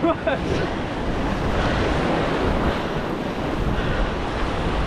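Ocean surf surging and washing over a rock ledge, a steady rushing wash, with wind buffeting the microphone.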